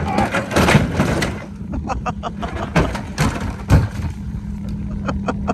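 Knocks and scraping as a wooden komatik sled is slid off a snowmobile trailer onto the snow, the loudest knocks about a second in and again past three seconds, over a steady low hum.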